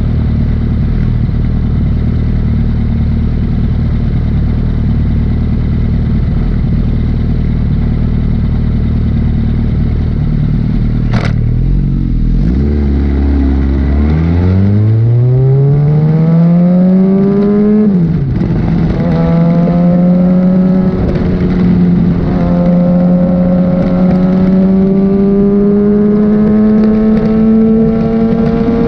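Sportbike engine running at low, steady revs for about twelve seconds, with a sharp click just before it pulls away. The revs then climb steadily, drop briefly with a gear change, and settle into a higher, slowly rising cruise.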